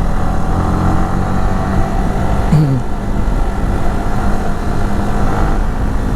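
Yamaha R15 V3's single-cylinder engine running steadily under way, heard from the rider's position with wind rush. A brief falling tone comes about two and a half seconds in.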